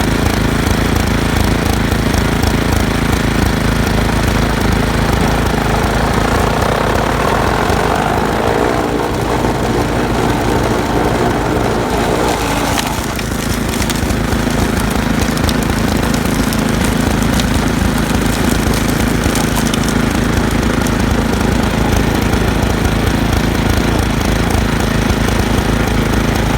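Toro 826 OE snowblower's single-cylinder four-stroke engine running steadily at speed. From about six seconds in, an extra rattling layer joins, which cuts off sharply about thirteen seconds in.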